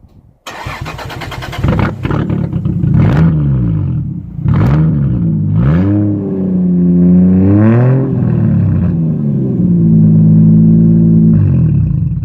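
Turbocharged 1JZ inline-six in a Toyota Cressida, running straight pipe with the muffler removed: it fires up about half a second in, is blipped up and down in pitch several times, then held at a steady fast idle before shutting off right at the end. Very loud.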